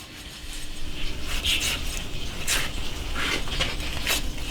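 Knife cutting through raw lamb on a board, a run of irregular short scraping, slicing strokes as the ribs are separated from the leg.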